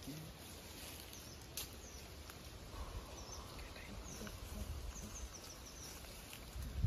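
Quiet forest background with a few faint, short, high bird chirps, mostly between about two and six seconds in.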